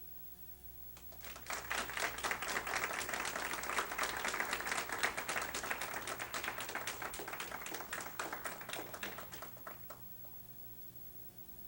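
Audience applauding: many hands clapping, starting about a second in, swelling and then dying away near the end.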